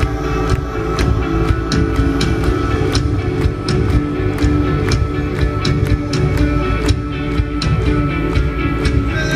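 Rock band playing live, electric guitars over drums with a steady beat.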